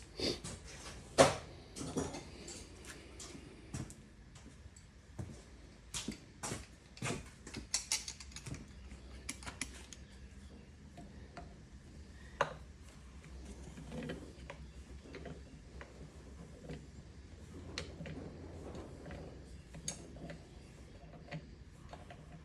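Hand tools clicking and knocking against metal as the rusted oil pan bolts of a Kohler CV725 engine are worked loose: irregular taps, busiest in the first ten seconds, with one sharp knock about a second in.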